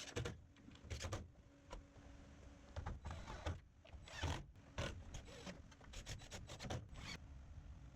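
Wood being handled and rubbed against wood: irregular scrapes and light knocks, a dozen or so short ones.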